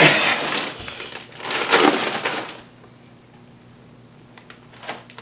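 The tail of a shout, then a plastic bag of chicken nuggets crinkling in two bursts as it is swung up and shaken. It falls quiet about halfway through, leaving room tone.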